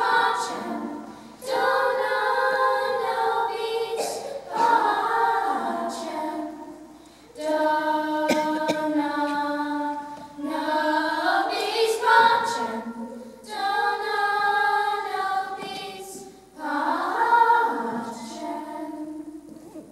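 Children's choir singing a cappella in phrases a few seconds long, with brief breaths between them; the last phrase ends shortly before the close.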